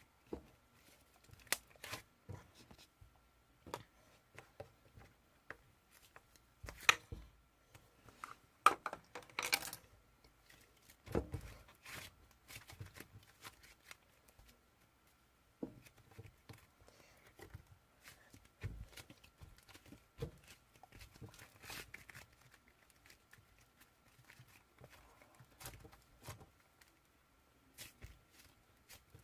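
Faint, scattered clicks, taps and rustles of small objects being handled, with quiet gaps between; the loudest clusters come about 7, 9 and 11 seconds in. A faint steady high hum sits under it throughout.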